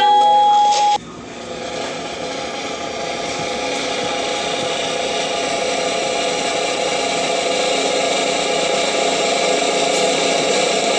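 A held high note stops about a second in, then a long snare-drum roll, the circus build-up before a cymbal crash, slowly grows louder.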